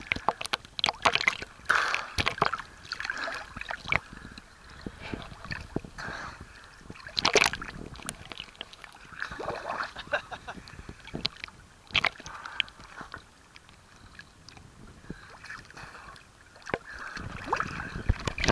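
Choppy sea water sloshing and splashing against a camera held at the surface, with irregular slaps of small waves.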